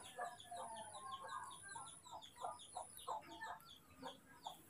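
Faint short animal calls, a few a second and unevenly spaced, like clucking. Above them runs a fast, regular high chirping.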